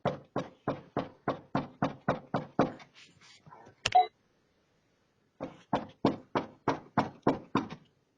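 Knuckles rapping fast and evenly on a front door, about three knocks a second, picked up by a video doorbell's microphone. A run of about ten knocks is followed by a single louder sharp hit, a pause of about a second and a half, then another run of about eight knocks.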